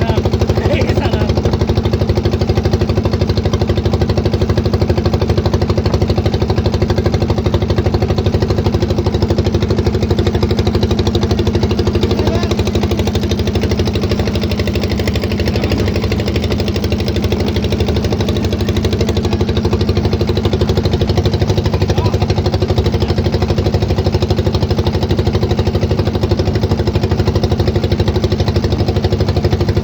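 Boat engine running steadily under way: a loud, even drone with a rapid regular pulse.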